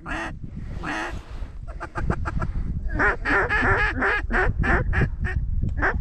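Mallard-style duck quacking: two drawn-out quacks in the first second, then a fast run of short, loud quacks, about six a second, to the end.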